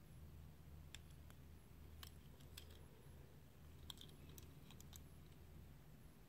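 Near silence: a low steady room hum with a few faint, scattered clicks as a die-cast metal toy car is turned over in the fingers.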